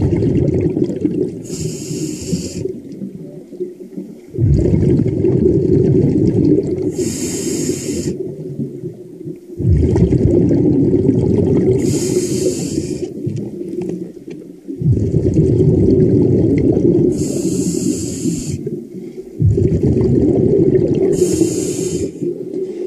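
A diver breathing underwater through a scuba regulator: each breath a short high hiss and a long low rush of exhaled bubbles, about one breath every five seconds.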